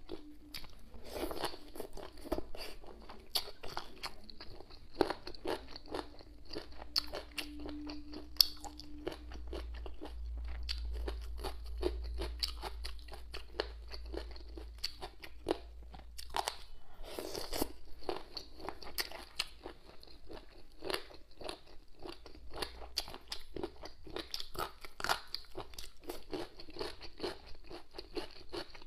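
A person chewing cold boneless chicken feet in a spicy cucumber-and-onion salad, close to the microphone. It is a steady run of crisp crunches.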